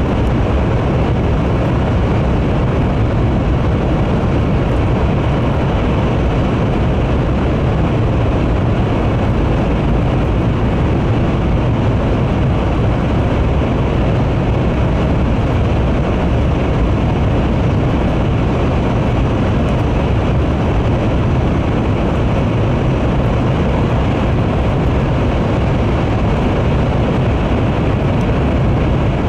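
Series N700 Shinkansen running, heard from inside the passenger cabin: a loud, steady low rumble with a noisy hiss above it, unchanging throughout.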